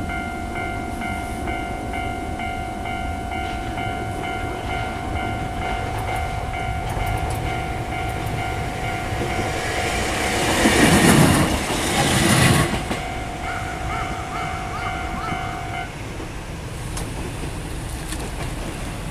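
Japanese level-crossing warning bell ringing in a steady pulsing tone while a train goes by with a loud rush about ten to twelve seconds in; the bell stops about sixteen seconds in, once the train has cleared the crossing.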